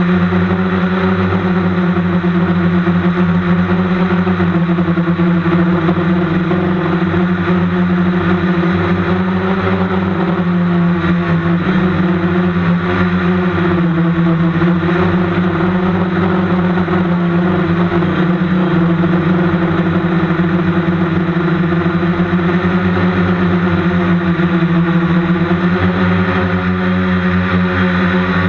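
Electric motors and rotors of a small remote-controlled camera helicopter, heard from on board: a loud, steady whir at a constant pitch while it hovers.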